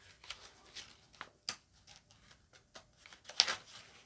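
Scattered light clicks and rustles of things being handled, a dozen or so short irregular sounds, with the loudest a little after three seconds in.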